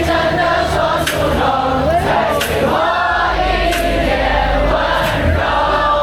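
Live pop music from a stage sound system: singing voices over a steady drum beat, with a deep bass line coming in about three seconds in.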